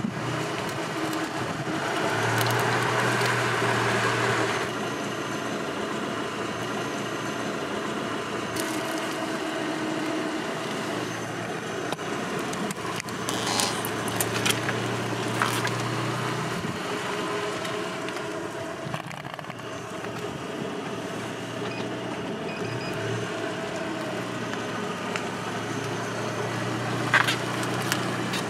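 Car engine running steadily as the tyre creeps over heart-shaped wax tealight candles on asphalt, with a few sharp cracks and crunches as the candles are crushed, about halfway through and again near the end.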